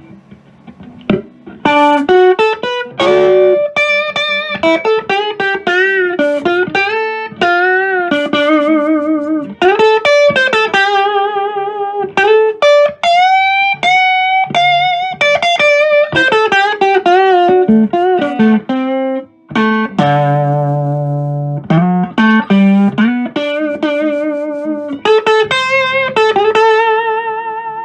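Fender Big Apple Stratocaster played on its neck humbucker with all controls turned up, through a home-built Fender Tweed Pro clone amp with four 8-inch speakers: single-note lead lines with string bends and vibrato, and a chord rung out about twenty seconds in.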